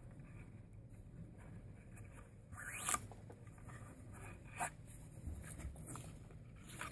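Nylon paracord being drawn through a knot and pulled tight: a sliding, rubbing cord sound, with one louder rising zip about three seconds in and a few shorter rubs later.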